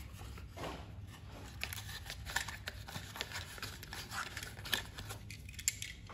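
Cardboard packaging of a 1:64 diecast toy jeep being handled: the inner tray slid out of its window box and the small metal car worked loose from it, with light scraping, rustles and irregular small clicks.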